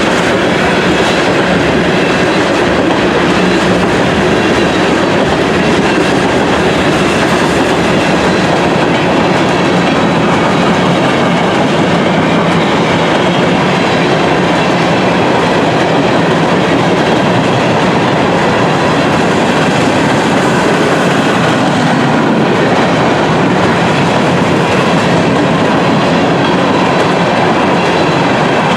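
A train passing close by, its railroad cars rolling over the track with a loud, steady noise.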